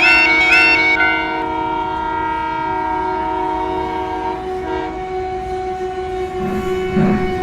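Train horn blowing a held chord of several tones, most of it cutting off about four and a half seconds in while one lower tone carries on. Over the first second a quicker, higher repeated note sounds on top.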